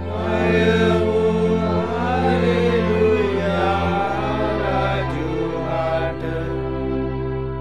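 A choir singing a Christmas carol over held accompanying chords; the low chord changes about four seconds in.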